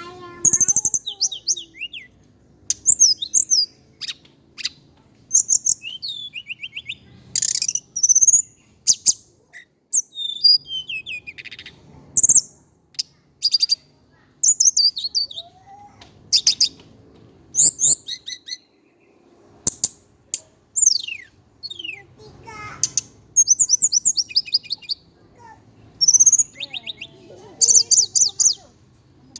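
Hill blue flycatcher (sikatan cacing) singing: short, high, rapid twittering phrases and trills, one after another with brief pauses between them.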